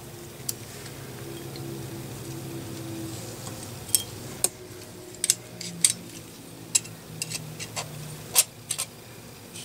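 Scattered light clicks and clinks of small metal hand tools, hemostats and a digital caliper, handled against an air rifle's valve body while the valve stem is screwed in and its depth measured. A faint low hum sits underneath.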